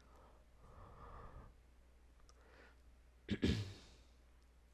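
Quiet room tone with a faint low hum and soft breathing, then a short, breathy sigh-like vocal sound a little over three seconds in.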